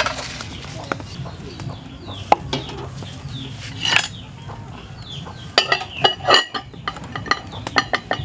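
Ceramic bowl and plate clinking against a metal pot as they are set inside it: scattered sharp clinks, bunched together in the second half. Birds chirp in the background.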